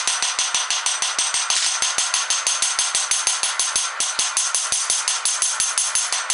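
Forging hammer striking steel in a fast, even rhythm of about six blows a second, each with a bright metallic ring, with a brief break about four seconds in.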